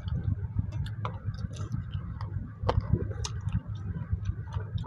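Close-up eating sounds of rice and curry being eaten by hand: chewing and lip-smacking with many small wet mouth clicks, and fingers working the rice on steel plates.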